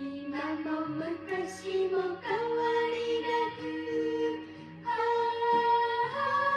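Background music: a slow lullaby sung by a high voice in long held notes.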